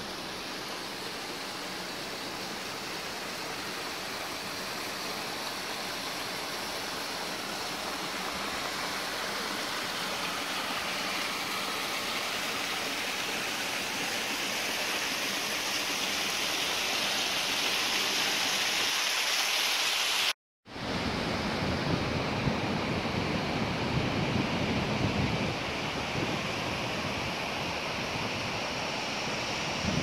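Rushing water of the Çandır stream, a steady rush that grows gradually louder. After a brief dropout about two-thirds of the way through, it carries on deeper and gustier, with wind buffeting the microphone.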